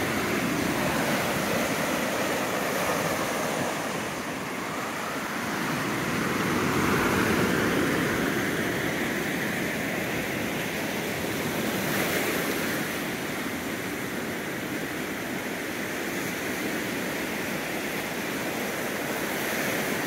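Ocean surf washing onto the beach in a steady rush, with one wave swelling loudest about seven seconds in and then easing off.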